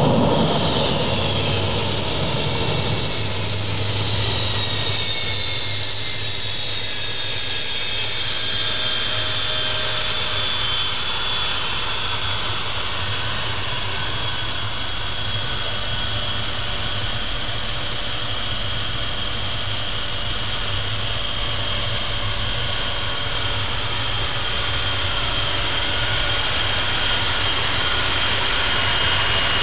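MiG-21MF jet fighter's Tumansky R-13-300 turbojet running at taxi power: a steady jet noise with high whines. The whines shift in pitch during the first several seconds, then hold steady.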